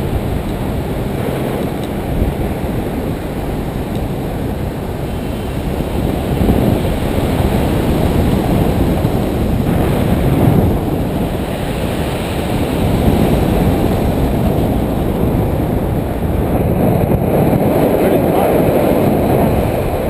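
Wind rushing over a GoPro's microphone as a paraglider flies: a loud, uneven, low rush of wind noise that swells in gusts about a third of the way in and again near the end.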